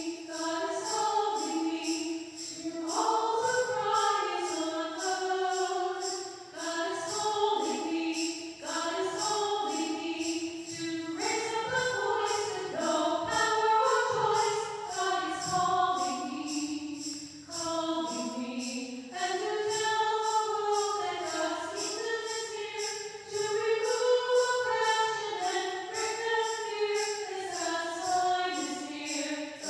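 Choral music: a choir singing a hymn over a steady jingling beat.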